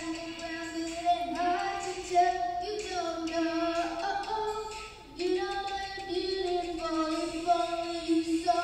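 Child singing a melody into a handheld microphone, holding long notes, with a brief break about five seconds in.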